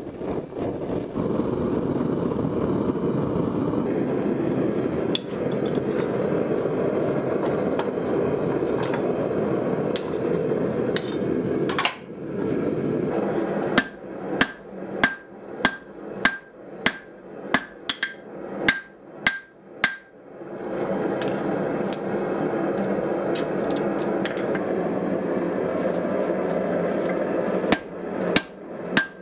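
Propane forge burner running with a steady rushing noise. Between spells of it come runs of hand-hammer blows on red-hot spring steel on an anvil, about two strikes a second, each with a short metallic ring.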